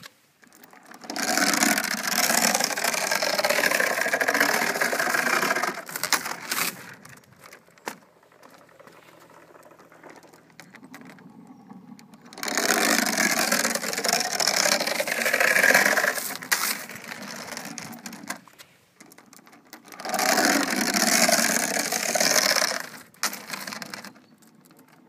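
Iron chain of a hand-hauled chain ferry boat rattling and scraping through the boat's guide as it is pulled hand over hand, in three hauls of a few seconds each with quiet pauses between them.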